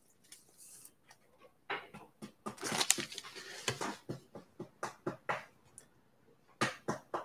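Light, quick taps and crinkling rustles of handling. There is a dense run of them, then evenly spaced taps about four a second, then a short cluster near the end.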